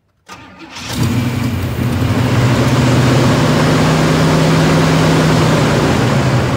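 Chevy Caprice Classic's carbureted engine being cold-started after months of sitting: a brief crank, then it catches about a second in and runs loud and steady.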